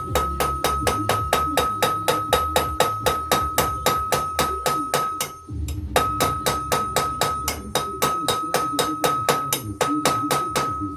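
Light, rapid hammer taps on the metal gear of a Makita M2300 miter saw, about five a second, each with a ringing metallic tone. The taps pause briefly a little past halfway, then resume. They are meant to knock the gear loose from its shaft.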